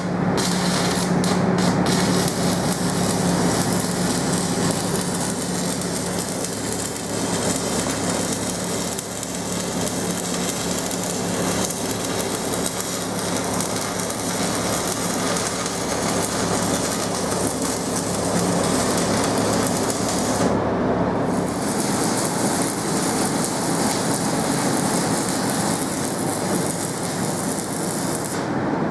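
Electric arc welding on the steel shaft and pillow-block assembly: the arc runs as a steady, even noise, with a short break about two-thirds of the way through.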